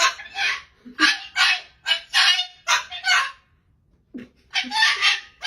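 A dog barking repeatedly in short, high, sharp yaps, about two a second, with a pause of about a second partway through.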